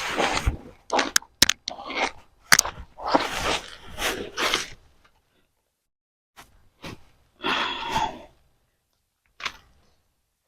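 Soil and sweet potato roots crunching and rustling as a grow bag is dug through by hand, in irregular bursts with a few sharp clicks.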